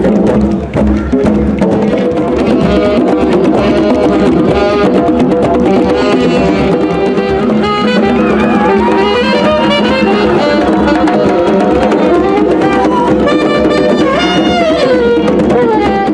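Group of djembe hand drums played together in a steady, dense rhythm. About halfway in, a saxophone melody with sliding pitches comes in over the drumming.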